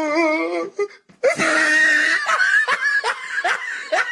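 A wavering, held vocal sound ends, and after a short break a loud burst of laughter starts. It turns into quick repeated 'ha' pulses, about three a second.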